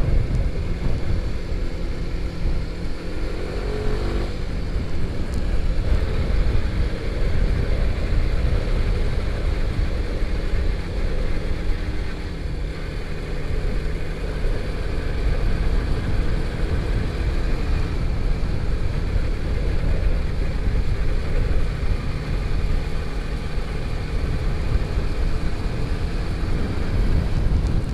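Motorcycle engine running steadily on the road, under heavy low wind rumble on the microphone, with a brief rise in pitch about four seconds in.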